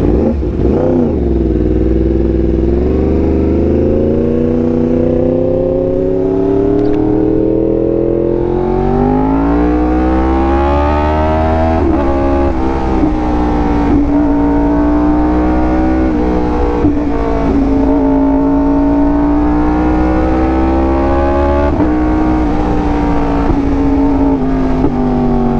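Yamaha R1M's crossplane inline-four running through an SC Project exhaust while being ridden: the engine note climbs steadily under throttle for several seconds, dips briefly about halfway through, then holds a fairly steady pitch with small rises and falls. A low wind rumble lies under it.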